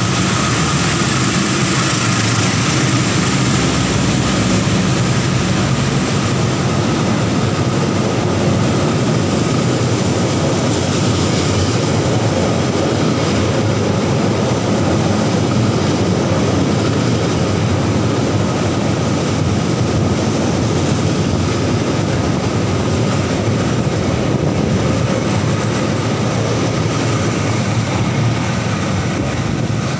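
A passenger train hauled by a CC206 diesel-electric locomotive running through the station at speed: a loud, steady rush of the locomotive and coaches' wheels on the rails as the train goes by.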